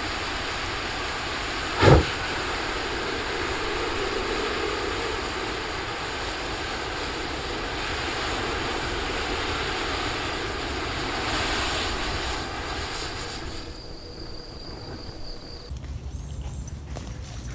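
A giant ball of matches burning, the flames making a steady rushing hiss, with one sharp crack about two seconds in. The sound drops away about fourteen seconds in.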